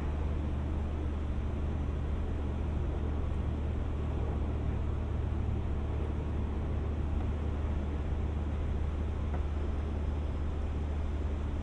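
Indian Pacific train's diesel engines running steadily at idle: a constant low drone with no change in pitch or level.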